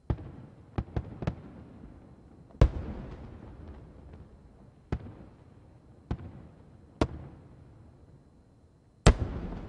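Aerial firework shells bursting, about nine separate booms each with a rumbling, echoing tail. There is a quick run of three near the start, and the two loudest come a few seconds in and near the end.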